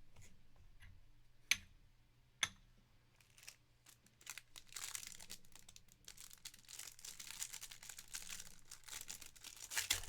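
Two sharp clicks, then plastic wrapping on a pack of trading cards being torn open and crinkled, the crackling starting about halfway through and loudest near the end.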